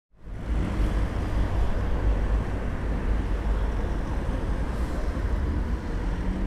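Steady outdoor background noise: a low, fluctuating rumble under a faint hiss. It fades in from silence right at the start.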